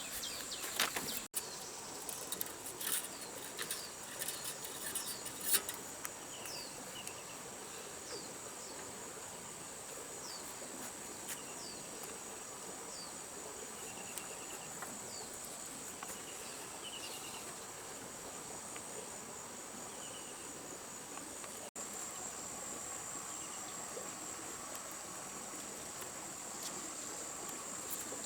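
Steady high-pitched chorus of crickets and other insects. A scatter of sharp clicks comes in the first few seconds, and short falling chirps repeat every second or so through the middle.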